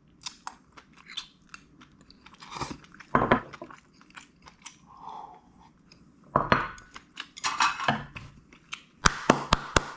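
Close-miked chewing and crunching of food, in irregular loud bites with quieter mouth clicks between them.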